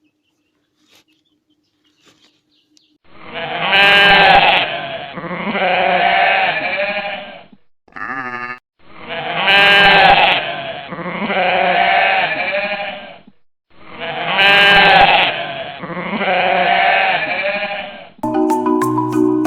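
A long, two-part bleat of a sheep or goat, played three times over in identical form like a looped sound effect, with a short warbling tone after the first. Marimba-like music starts near the end.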